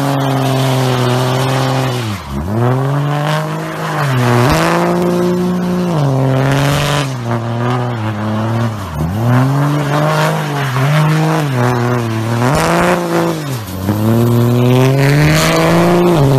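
Pickup truck doing a burnout: the engine is held at high revs, its pitch dipping sharply and recovering several times, over the hiss and squeal of spinning tyres.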